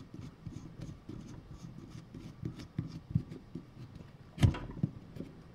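Small irregular metal clicks and rubbing as a round nut is turned by hand onto the threaded axle of a 1920s NSU bicycle hub, with one louder knock about four and a half seconds in.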